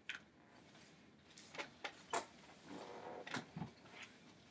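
A wooden dining chair with a padded leather back being moved and sat in: a string of light knocks and clicks, a short creaking stretch about three seconds in, then a low thump as it takes her weight.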